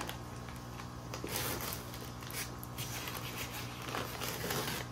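Plastic goldfish shipping bag rustling as it is handled, in a few brief bouts over a steady low hum.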